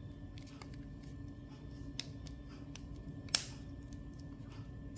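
Plastic clips of a Redmi 2 smartphone's rear housing snapping into place as thumbs press it back onto the phone. Faint small clicks, a clearer one about two seconds in, and one sharp loud snap a little past the middle.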